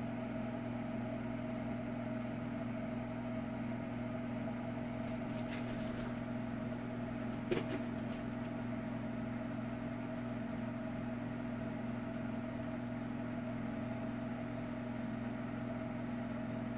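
A steady machine hum with a faint click about seven and a half seconds in.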